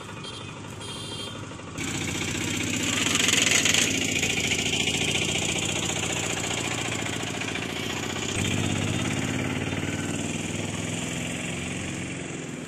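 Engine of a moving vehicle running, heard from on board, with a hiss of road noise; the sound gets abruptly louder about two seconds in.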